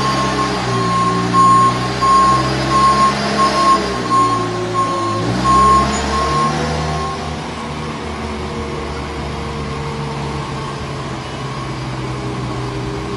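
Combilift multidirectional forklift running, its warning beeper sounding over and over for about the first seven seconds and then falling silent. The engine note shifts about five seconds in and runs on steadily.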